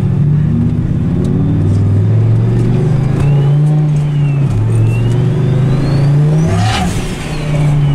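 Turbocharged Dodge Ram SRT-10's V10 engine pulling under acceleration, heard from inside the cab, its pitch stepping down twice. A thin turbo whistle glides up and down with boost, and a burst of hiss comes about seven seconds in.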